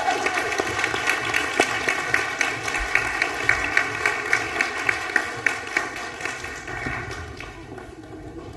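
Audience applauding, with sharp close claps at about three a second standing out in the middle, dying away near the end.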